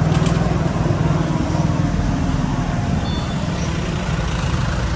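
Motor traffic on a busy city street: vehicle engines running close by with a steady low rumble under general street noise.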